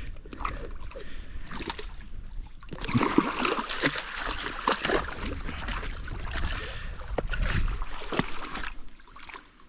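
German wirehaired pointer splashing and sloshing through shallow water with a carp in its mouth. A run of choppy splashes that is busiest in the middle and dies down near the end.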